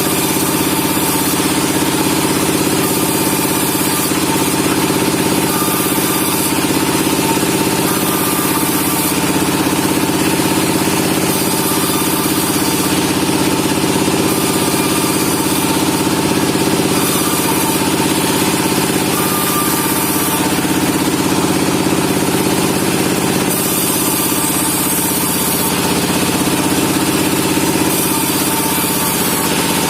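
Sawmill machinery sawing Merkus pine logs, running steadily at constant speed with an even, pitched motor hum.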